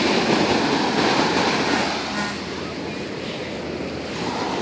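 Ocean surf washing in, a steady rush that eases about two seconds in and builds again near the end.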